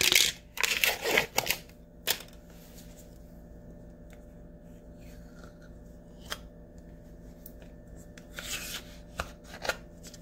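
Scrapes, rustles and clicks of cream cheese being unwrapped from its foil package and scooped out with a metal spoon, in short bursts near the start and again near the end, with a quiet stretch between.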